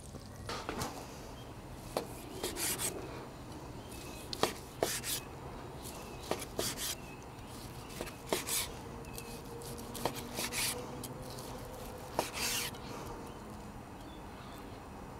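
A chef's knife slicing through a cooked steak on a cutting board. There are about six or seven cuts, roughly one every two seconds. Each is a sharp tap of the blade on the board and a short rasping stroke through the meat.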